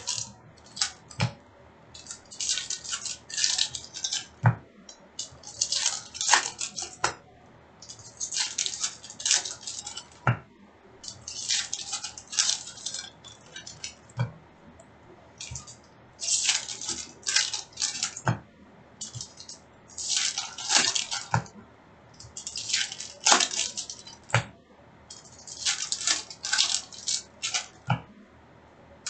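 Upper Deck hockey card packs being handled and opened: wrappers crinkling and cards rustling in short bursts every two to three seconds, with light clicks and taps between.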